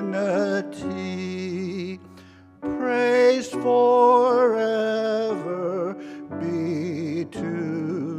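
A man's solo voice sings the closing phrases of a hymn in long held notes with vibrato, over piano accompaniment, with a brief break about two seconds in.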